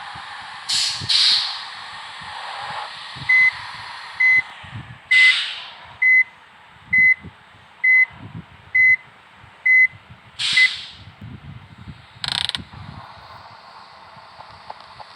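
A bus's reversing beeper sounding nine short, even beeps of one steady pitch, about one a second. Several short bursts of air hiss are mixed in, typical of a bus's air brakes or pneumatic release.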